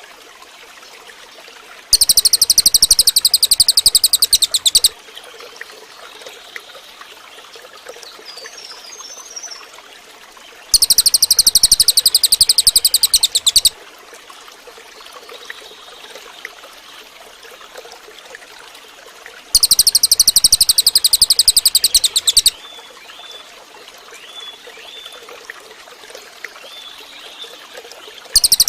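Cililin bird singing: three loud, high, rapid trills of about three seconds each, some six seconds apart. Faint chirps come between them over a steady trickle of water.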